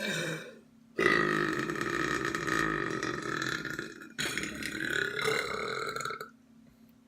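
A person belching twice in a row: a long belch of about three seconds, then a second one of about two seconds, after a brief sound at the start.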